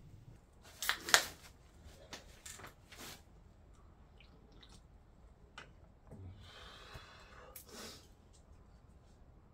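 Eating noises: a pair of sharp clicks about a second in, then a few lighter clicks, from chopsticks against a stainless steel bowl, with a short soft rustle or slurp later on.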